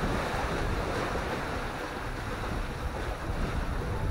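Steady wind buffeting the microphone in a strong breeze, with river waves washing beneath it: an even rushing noise, heaviest in the low end.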